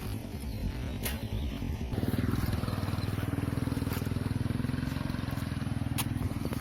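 An engine running steadily comes in about two seconds in and holds, with a couple of sharp clicks.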